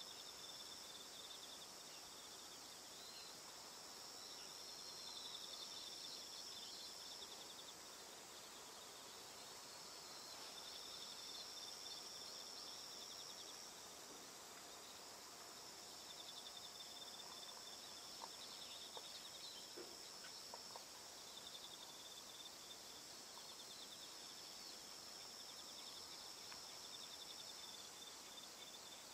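Faint, steady trilling of insects, two high trills overlapping, one of them a rapid pulsing, each pausing now and then, over a soft outdoor hiss.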